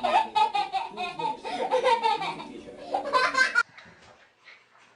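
A baby laughing in quick, repeated bursts, breaking off about three and a half seconds in.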